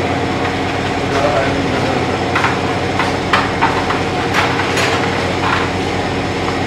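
Steady, pitched hum of workshop machinery running throughout, with irregular light clicks and knocks of tools being handled on the motorcycle.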